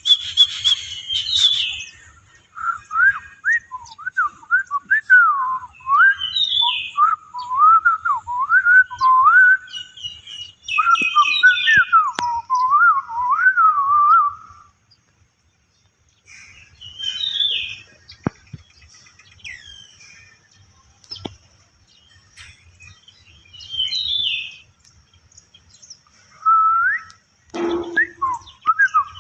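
A songbird singing: a long run of quick whistled notes sliding up and down, then after a pause, scattered short higher chirps.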